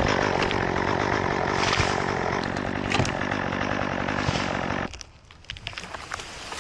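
Two-stroke chainsaw running steadily, then cutting out abruptly about five seconds in.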